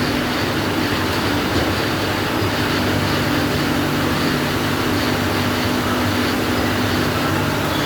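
CNC lathe machine with its autoloader running: a steady machine hum with a couple of constant low tones under an even whirring noise.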